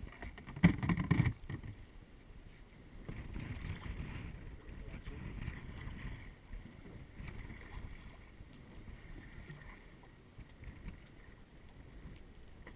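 A cluster of loud knocks about a second in, then wind buffeting the microphone and choppy water slapping around a small boat in a windy bay, rising and falling unevenly.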